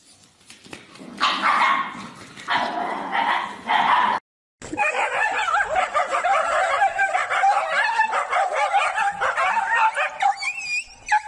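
Dogs barking and yelping in a scuffle. After a short break about four seconds in, a rapid run of high yips lasts about six seconds. Before the break there are a few loud, rough bursts.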